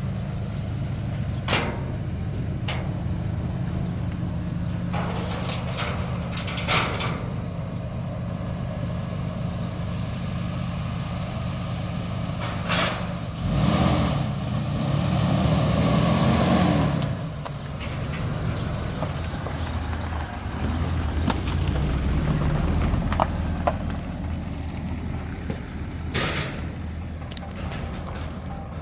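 Motor vehicle engine running steadily with a low hum. It swells louder for a few seconds around the middle, with a few sharp knocks here and there.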